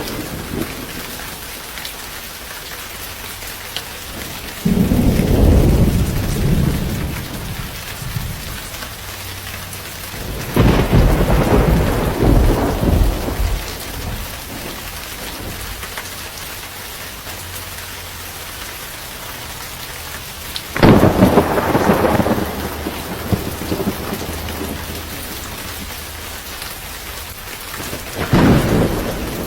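Steady heavy rain falling, with four loud rolls of thunder spread through it, each swelling and dying away over two to three seconds.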